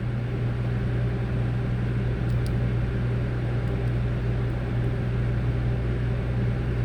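Steady low electrical hum, like a bench appliance or fan running, with a couple of faint small ticks about two seconds in.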